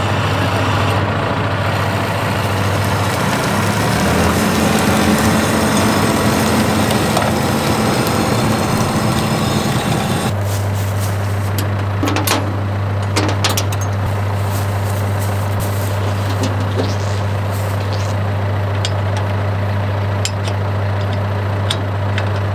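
Diesel engine of a John Deere 6125 tractor idling steadily. A louder, rougher stretch fills the first half and ends abruptly about ten seconds in, and a few sharp clacks come soon after.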